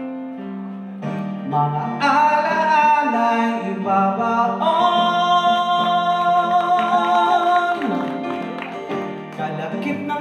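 A song: a voice singing a melody over guitar accompaniment, with one long held note in the middle.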